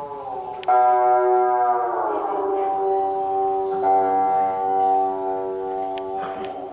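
Traditional Vietnamese water puppet theatre ensemble playing: a melody of long held notes that slide down in pitch twice, with a few sharp percussion clicks.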